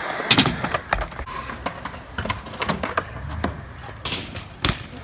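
Skatepark clatter: a series of sharp knocks and clacks from bikes and boards hitting ramps, ledges and concrete. The loudest clacks come about a third of a second in and near the end.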